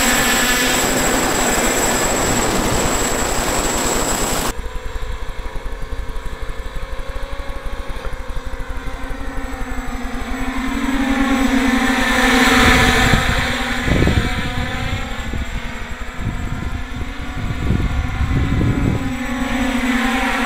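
Hexacopter drones hovering and manoeuvring overhead: the steady hum and whine of their electric motors and propellers, holding a few tones that drift in pitch. The sound swells as one passes close, about two-thirds of the way in. Wind rushes over the microphone for the first few seconds and gusts against it now and then later.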